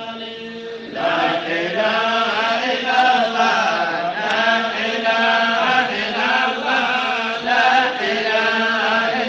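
Voices chanting an Islamic qasida (kassida), a melodic devotional chant over a steady held low tone; the chanting swells louder about a second in.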